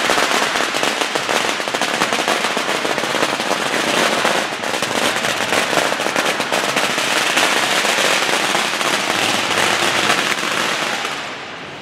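Strings of firecrackers going off in a dense, rapid crackle of pops, dying down just before the end.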